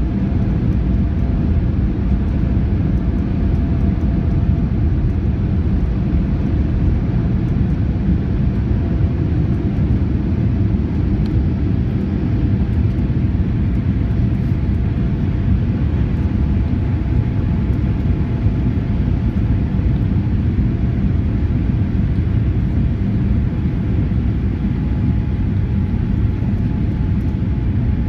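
Boeing 787-8 Dreamliner jet engines at takeoff, a steady deep rumble with a faint thin whine over it that holds even throughout.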